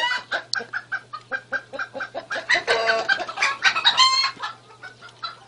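Chickens clucking: a rapid run of short clucks, several a second, with a few longer, louder calls near the middle and about four seconds in, over a faint steady low hum.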